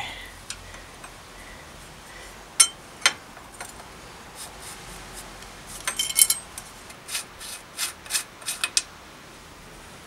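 Fixed cup of a cup-and-cone bottom bracket being unscrewed from the frame's threaded shell: two sharp metal clicks, then a run of light metallic scraping and clinking from about six to nine seconds in.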